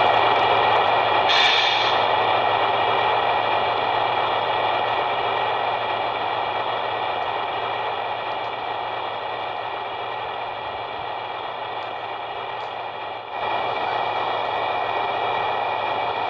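1/14-scale RC Hino dump truck running, its drive making a steady whine that fades as the truck moves away. About thirteen seconds in, the sound cuts and comes back louder and closer.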